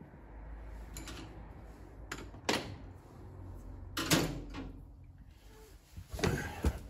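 A handful of sharp clicks and knocks of plastic and metal parts being handled: a BMW CAS4 module being refitted in the car and its connectors plugged back in. The loudest knocks come about two and a half and four seconds in, with a quick cluster near the end.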